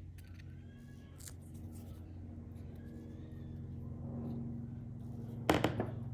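Small tools and tablet parts being handled: faint light clicks and taps over a steady low hum, then a sharp clatter about five and a half seconds in.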